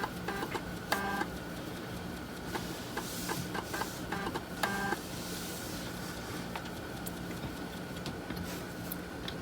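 3.5-inch floppy drive reading a freshly inserted high-density disk: the spindle motor hums steadily while the head steps with scattered clicks and two short buzzing tones, about a second in and again near the middle.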